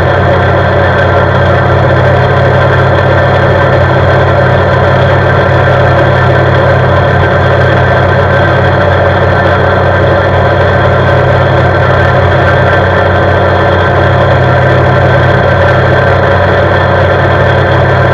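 CFMoto CForce 520 ATV's single-cylinder engine running steadily at constant speed while the machine cruises along the road, its pitch holding level.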